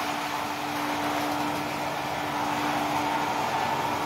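O gauge model train running along the track, with a steady hum and rumble of its motor and wheels.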